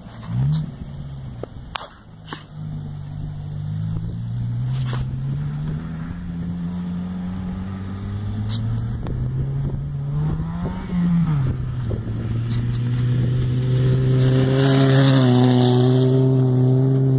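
Chevrolet Cavalier's engine revving hard as the car slides around a grass field, its pitch rising and falling again and again with the throttle. It grows louder near the end as the car comes close.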